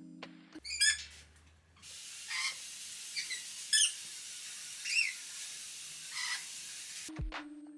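Water spraying from a hose with a steady hiss, while pet birds give several short, sharp calls. Music plays briefly at the start and end.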